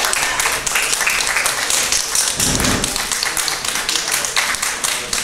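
Audience applauding, a dense patter of many claps at once, with a single dull low thump about two and a half seconds in.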